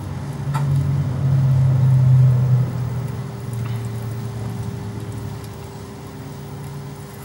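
Microwave oven transformer humming loudly as it is run until it burns itself out, overheating and smoking. The deep hum swells over the first two and a half seconds, then eases to a steadier, quieter hum with a faint higher tone.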